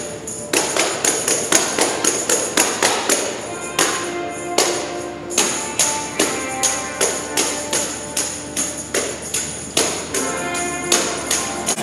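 Tambourine struck again and again in an uneven rhythm, about two to three hits a second, its jingles ringing after each hit, over faint sustained musical notes.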